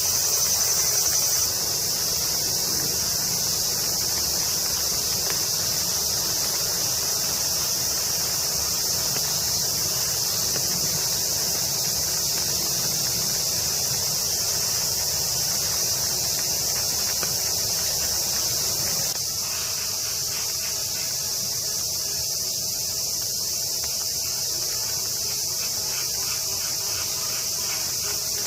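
A dense chorus of summer cicadas buzzing steadily and high-pitched. It drops a little in level about a second in, and again about two-thirds of the way through.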